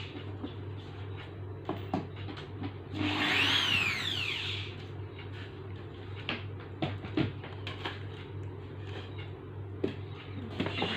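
Packaging being handled during an unboxing: scattered clicks and taps, with one longer rasping sound lasting about a second and a half about three seconds in, over a steady low hum.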